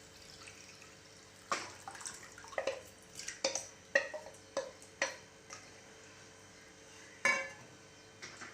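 Cooked horse gram water being poured from a cup into a kadai of cooked tomato paste: a run of short splashes, drips and light clinks, the last one about seven seconds in.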